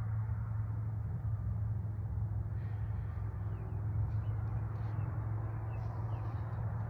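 A steady low rumble. From about two and a half seconds in, a few faint short chirps and brief rustling clicks are heard over it.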